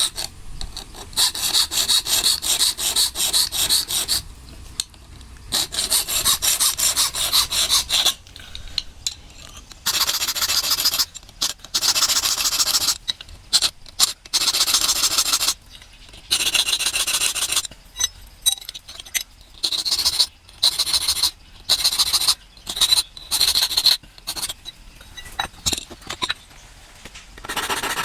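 Hand file rasping back and forth on the steel blade of a chirava (coconut scraper), in runs of quick strokes lasting a second to a few seconds, with short pauses between, the runs growing shorter in the second half.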